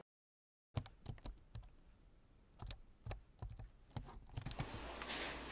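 Irregular light clicks and taps, a few every second, starting after a moment of dead silence; low background noise builds up near the end.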